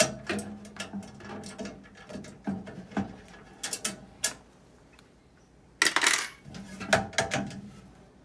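Metal clicks and clinks from a curbside mail safe's lock being locked back up, with a louder, longer metal clatter about six seconds in.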